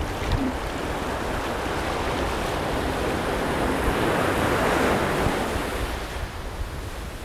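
Ocean surf breaking on a beach: a steady rush of waves that swells to a peak about four to five seconds in, then eases off.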